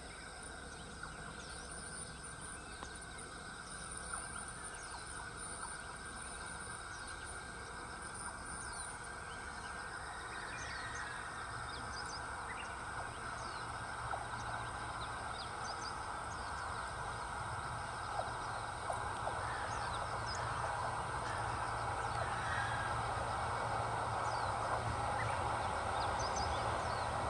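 A two-car hybrid diesel railcar approaching along the track, its low engine-and-running hum growing steadily louder from about ten seconds in. Small birds chirp now and then.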